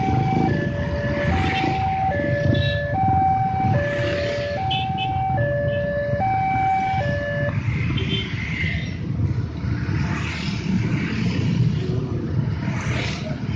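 Railway level-crossing warning alarm sounding a two-tone high-low chime, each note held just under a second, which stops about seven and a half seconds in. Underneath runs the steady low noise of many motorcycle engines.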